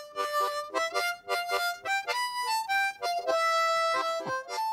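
A harmonica playing a wartime song as a melody of quick single notes, with one long held note shortly before it breaks off near the end.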